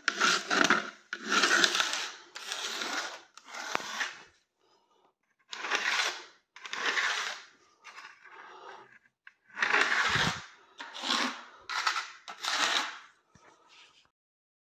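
Repeated rubbing and scraping strokes, each half a second to a second long with short pauses between them, and a low thud about ten seconds in.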